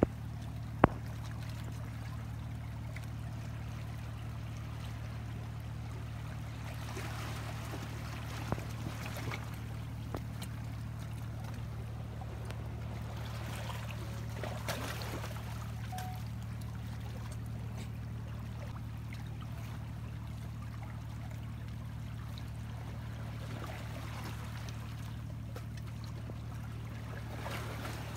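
Water trickling and lapping among rocks over a steady low hum, with a sharp click about a second in and a few fainter clicks later on.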